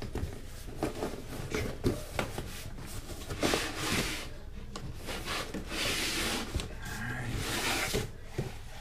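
Cardboard boxes scraping and rubbing against each other as a long tripod box is slid out of its cardboard shipping carton, in several scraping strokes with a few knocks of cardboard early on.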